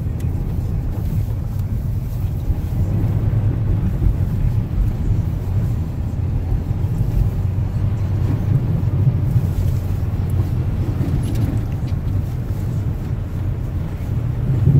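Steady low rumble inside a moving car's cabin: engine and tyres running over a packed-snow road.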